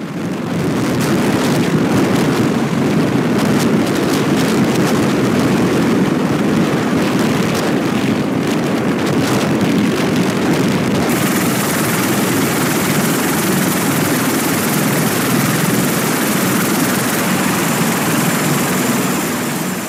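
CH-53 heavy-lift helicopter flying: steady, heavy rotor and turbine noise. About halfway through, it turns hissier.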